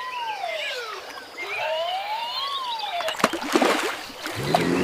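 Siren wail, two slow rising-and-falling sweeps. Then a short spell of splashing and clicks, and a low steady tone comes in near the end.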